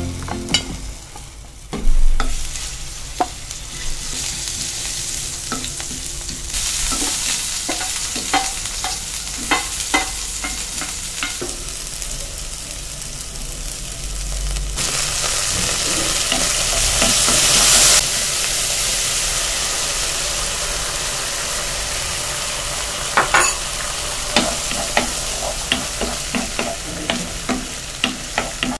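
Diced tomato and then beaten egg sizzling in oil in a nonstick pan, stirred with a wooden spoon that taps and scrapes against the pan. The sizzle gets louder about 7 s in and louder still about 15 s in.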